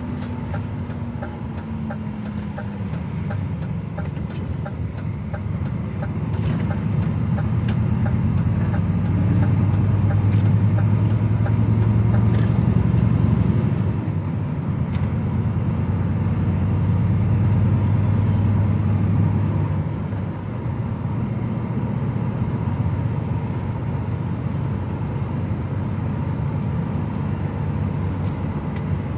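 DAF XF truck's diesel engine and road noise heard inside the cab while driving, a steady low drone. It grows louder twice, about a third and about two thirds of the way through, and eases off after each.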